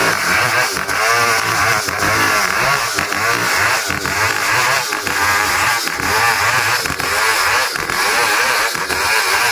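Stihl 070 two-stroke chainsaw running at high revs through the ironwood log, its engine note repeatedly rising and falling as the cut loads it.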